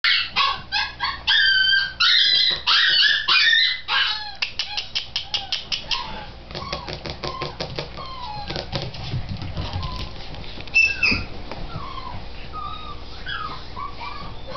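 A puppy yapping in loud, quick high-pitched yips, several a second, for about the first four seconds, running into a faster, fading string of yips. After that come softer short calls sliding up and down in pitch.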